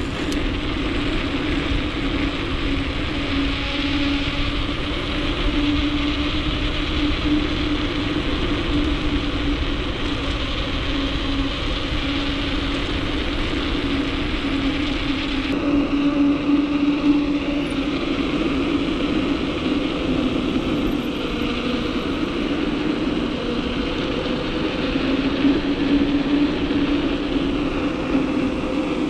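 Knobby mountain-bike tyres rolling fast on asphalt: a steady low hum over a rushing noise, swelling and easing slightly.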